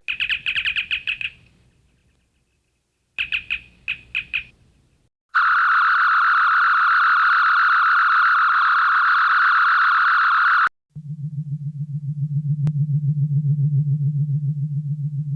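Synthesized sci-fi sound effects imitating those of the original Star Trek series, played one after another. First come rapid high electronic chirps, then a second short run of chirps. Next a steady, fast-warbling high tone sounds for about five seconds and cuts off sharply, and then a low, evenly pulsing hum.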